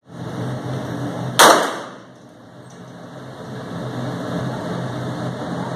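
A single shot from a Defenzia M09 less-lethal pistol firing an impact round about a second and a half in, ringing briefly off the walls of an indoor range, over a steady background hiss.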